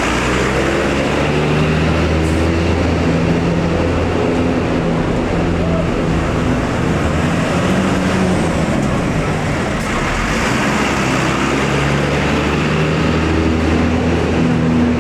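Tour bus diesel engines running close by, their low drone shifting in pitch as the buses rev and pull away, over a steady roar of road traffic.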